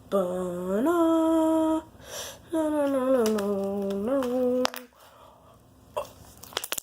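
A boy humming two long held notes, the first sliding up in pitch partway through and the second stepping down, then stopping; a few soft clicks follow near the end.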